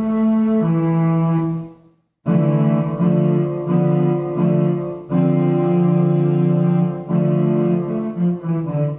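AIR Structure software sampler playing a chamber string section patch: sustained low bowed-string notes and chords, held for a second or two each, with a short break about two seconds in.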